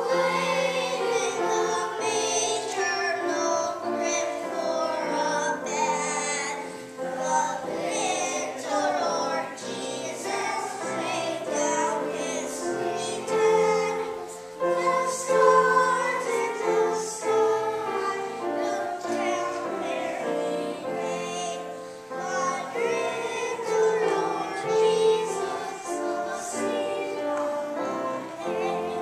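A group of children singing a song together, with an instrumental accompaniment underneath.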